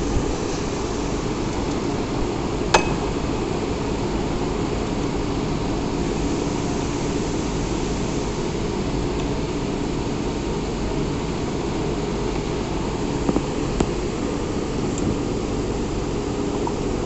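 Machine-shop machinery running with a steady low hum and a faint held tone. A sharp metallic click comes about three seconds in, and a couple of lighter clicks come near the end.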